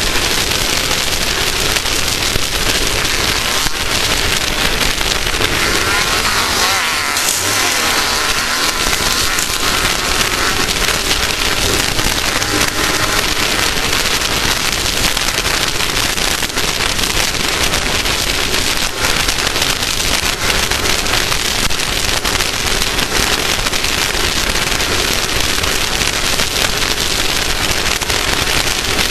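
Off-road racing vehicle noise: a loud, steady rushing sound flecked with many small clicks, with an engine note that sweeps up and down in pitch about six to nine seconds in.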